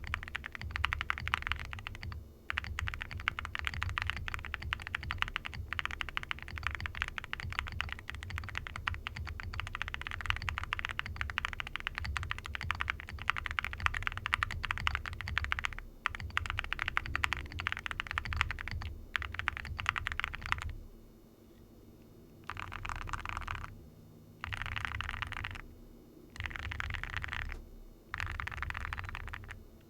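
Fast typing on an Owlab QK65 mechanical keyboard with lubed and filmed Gateron Cream Soda linear switches, a POM plate and ceramic keycaps: a dense, continuous stream of keystrokes. About two-thirds of the way through it breaks into four short bursts of typing with brief pauses between them.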